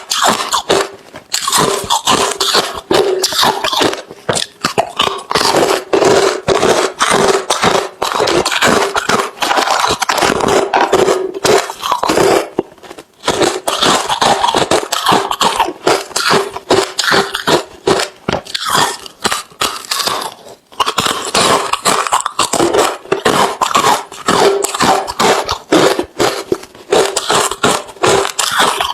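Close-miked crunching and chewing of hard, refrozen crushed ice: dense, irregular crunches that keep on throughout, broken by short pauses about a second in, around the middle and about two-thirds of the way through.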